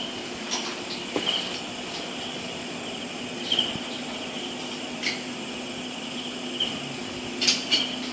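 Night-time insects, crickets or similar, chirping in short trills that swell and fade every second or two, over a steady low hum. A few light knocks and clicks stand out, the loudest pair near the end.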